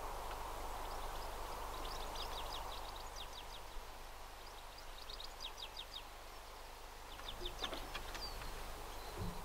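Small birds singing in several short, rapid trills, high-pitched, over a faint steady background hiss.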